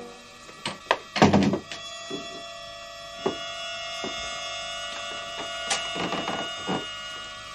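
Scattered wooden knocks and thuds, the loudest a quick cluster about a second in, over a faint steady drone of held tones that starts shortly after.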